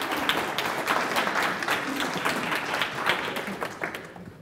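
A small audience applauding, the clapping fading out near the end.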